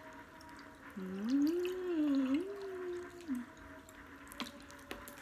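Water poured from a plastic bottle into a mug. About a second in, a woman hums a short tune that rises and falls for a couple of seconds.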